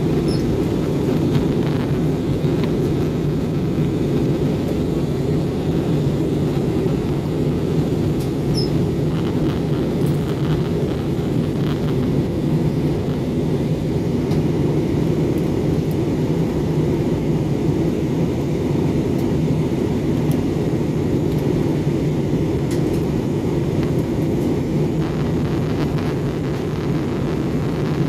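Steady roar of an Airbus A320-family airliner in cruise flight, heard from inside the cabin: jet engine and airflow noise, deep and even.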